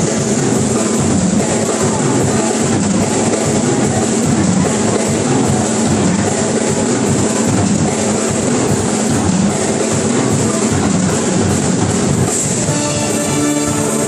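A school luk thung band playing live, with a drum kit keeping a steady beat under saxophones and other band instruments; clearer held notes come in near the end.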